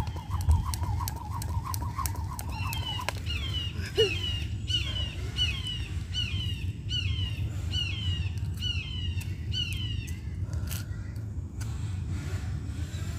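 A songbird repeating a clear, downward-sliding whistled note about twice a second for several seconds, over a steady low rumble. In the first three seconds, a steady high pulsing tone with light clicks comes before it.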